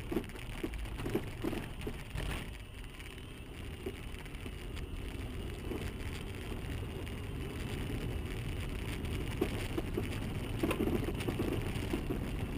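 A vehicle on the move: a steady low rumble of road and engine noise with scattered small knocks and rattles, and no crash impact.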